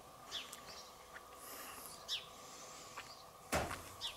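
Quiet outdoor ambience with a few short, faint bird chirps. A little after three and a half seconds in comes one brief, louder noise as a sip is taken from a drink can.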